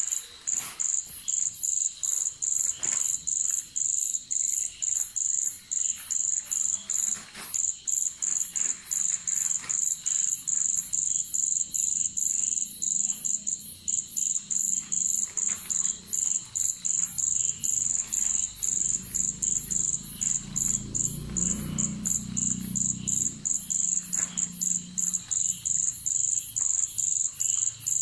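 Night insect, cricket-like, chirping in a steady, even high-pitched pulse, about two to three chirps a second.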